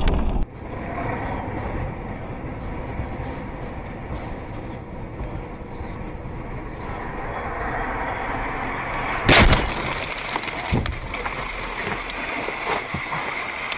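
Steady road and engine noise inside a moving car, then about nine seconds in a single loud bang of a car collision, followed by a few smaller knocks.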